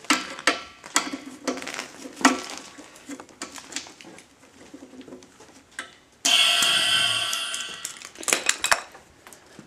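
Metal clanking and knocking, a run of sharp clinks and knocks. About six seconds in a sudden loud hissing rush with a ringing tone in it starts and fades away over about two seconds, followed by a few more clanks.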